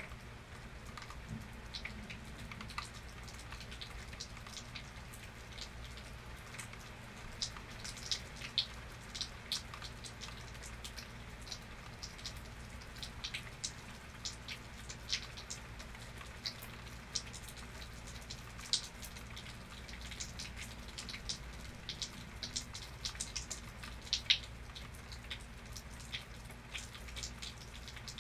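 Rain falling steadily, with individual heavy drops ticking and dripping irregularly on a nearby surface, more of them after the first several seconds.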